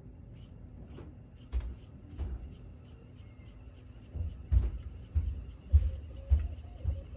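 Otari MX-5050 BII-2 reel-to-reel tape recorder with its reels spinning fast, music no longer playing; irregular low thumps and faint clicks, about eight thumps, mostly in the second half, over a faint steady high tone.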